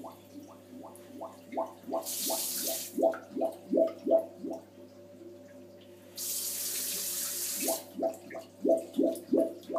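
Toilet bowl gurgling in a quick rhythmic wobble of pitched pulses, about three a second, like a dubstep bass wobble. Twice, a bit after two seconds and again past six seconds, a spell of rushing water hiss cuts in, and the pulses pause for a few seconds in the middle.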